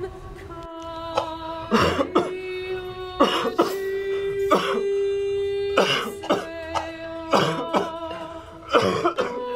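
A man coughing hard and repeatedly, mostly in pairs of coughs about a second apart, over background music holding long sustained notes.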